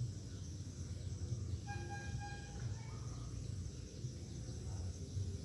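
Faint outdoor ambience: a steady low rumble with a light hiss, and a brief faint pitched call about two seconds in.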